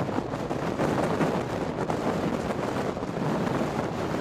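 Strong, gusty wind buffeting the microphone: a steady rushing noise that swells and dips from moment to moment.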